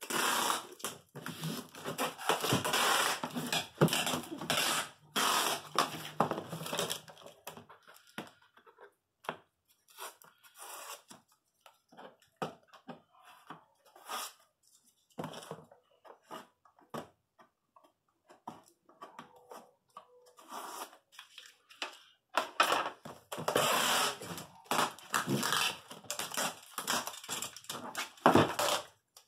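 Packing tape being pulled off its roll and pressed onto a cardboard box: two long stretches of noisy tape unrolling, with scattered knocks and rustles of the box being handled between them.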